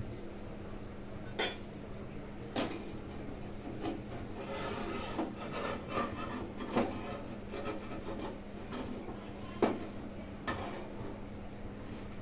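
Steel spatula scraping and tapping against a black iron dosa griddle as the dosa is loosened from the pan: scattered clinks and knocks with a stretch of rough scraping a few seconds in.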